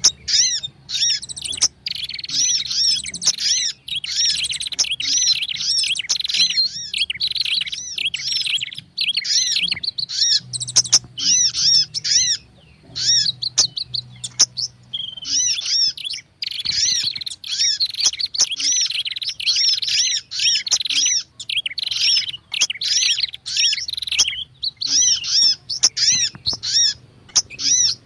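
Bird-lure recording of Indonesian small songbirds, prenjak mixed with sogon and kolibri (sunbird) calls: dense, rapid, high-pitched chirping and scolding notes in quick runs with brief pauses, over a faint low hum.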